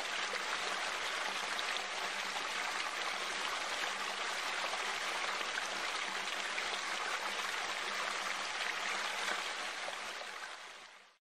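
A steady rush of running water, fading over the last second and then cutting off abruptly.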